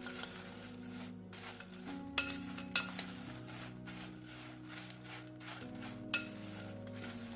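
Metal spoon stirring crisp fried potato cubes in a glass bowl, scraping through the pieces, with sharp clinks of the spoon against the glass: three close together about two seconds in and one more about six seconds in. Soft background music with held notes plays underneath.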